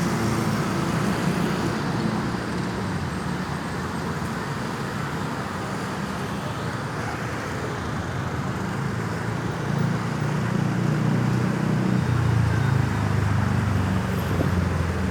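Road traffic noise: vehicle engines and tyres on the road, with no siren sounding. A heavier engine rumble grows louder about ten seconds in.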